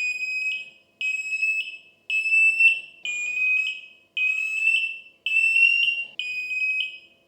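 Arctic Hayes wireless smoke alarms sounding their high-pitched piezo alarm beep, about once a second, seven times. The beeping follows pressing and holding the centre button for 3 seconds to activate the alarms.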